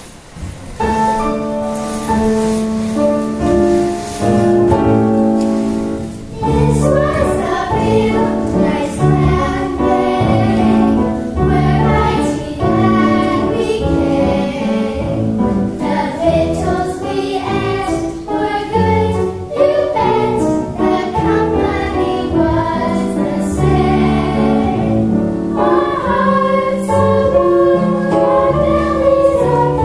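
A group of young girls singing a song together in chorus, with low held notes under their voices.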